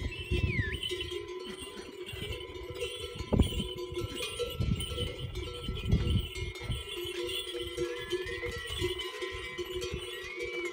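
Bells on a train of pack yaks ringing and clanking steadily as the animals walk past. A few short whistle-like pitch glides come through near the start and again near the end.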